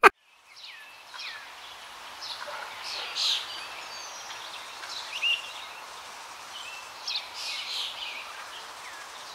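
Forest birds calling: short chirps that slide downward in pitch, repeated every second or so, over a steady hiss of bush ambience.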